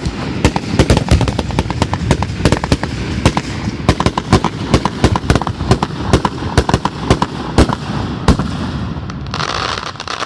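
Consumer fireworks going off in a rapid, continuous run of sharp bangs and crackles, several a second. The run gives way to a brief hiss about nine seconds in.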